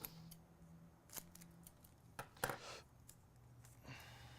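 Trading cards and pack contents being handled: a few faint crisp clicks and short rustles of card stock, the loudest about two and a half seconds in.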